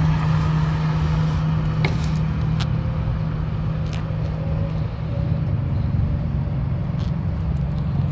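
2009 Audi A4's engine running at idle, a steady low hum heard close up in the engine bay, with a few light clicks.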